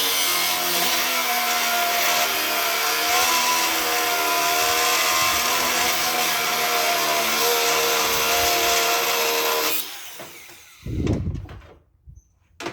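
Handheld power tool running steadily for about ten seconds, its pitch wavering slightly under load, then stopping. About a second later there is a low thud.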